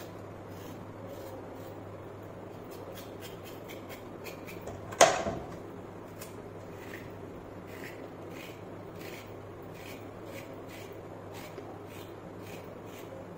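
A kitchen knife scraping the skin off a raw carrot in short, light strokes, with one loud knock about five seconds in, over a steady low hum.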